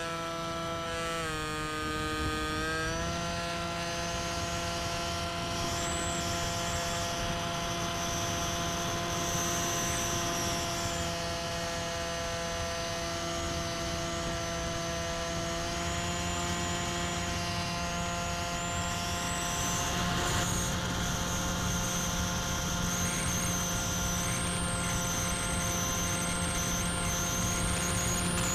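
Electric motor and propeller of a Bixler 3 RC plane, heard from its onboard camera in flight: a steady whine with several pitches stacked, dipping about a second in and rising near three seconds in as the throttle changes, then holding steady under a hiss of airflow.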